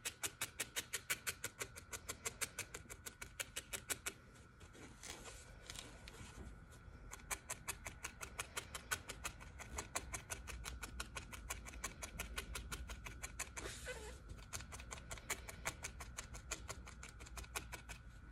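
A barbed felting needle stabbing rapidly and repeatedly through wool roving into the work pad, about six short pokes a second, matting the fibres firm. The poking stops for a few seconds about four seconds in, then again briefly about fourteen seconds in.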